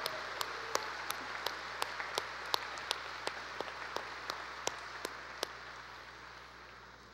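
A large audience applauding, with single louder claps standing out at about three a second; the applause dies away toward the end.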